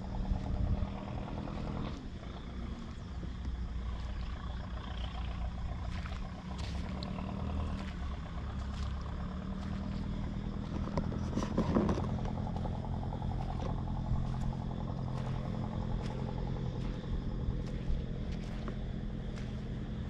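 An engine running steadily, with a low, even hum that swells louder about halfway through and scattered faint clicks over it.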